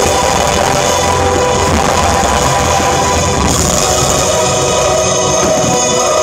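Loud rock music with electric guitar and drums.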